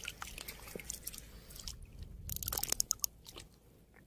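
Faint water splashing and crackling close to a wet camera microphone at the water surface: scattered small clicks that thicken into a denser cluster about two seconds in, then die away.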